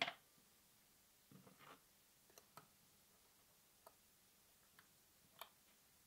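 Small metal clicks and light scrapes of steel being handled on a wooden workbench as the worn pocket-knife blade is laid onto a flat steel blank: one sharp click at the start, then a few faint ticks spread through the rest.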